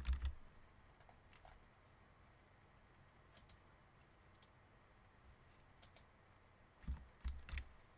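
Scattered single clicks of a computer mouse over quiet room tone, with three duller taps close together near the end.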